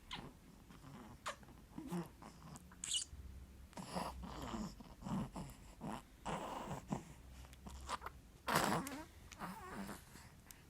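Sleep noises: irregular short snores, snorts and grunts, a few seconds apart at first and closer together in the middle, the loudest snort about eight and a half seconds in.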